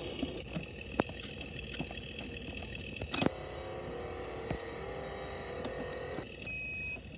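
Electronic car-engine and driving sound effects from a toy steering-wheel dashboard's small speaker, with plastic clicks as its gear lever and buttons are worked. The sound drops out about six seconds in.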